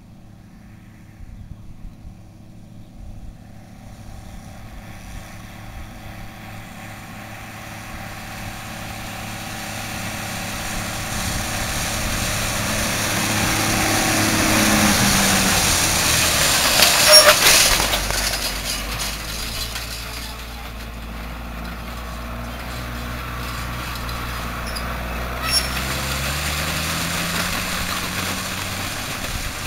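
Case IH MX135 tractor's diesel engine running under load while pulling a hay rake. It grows louder as the tractor comes closer, is loudest as it passes about halfway through, with a sharp clack at that moment, then carries on more quietly as it moves away.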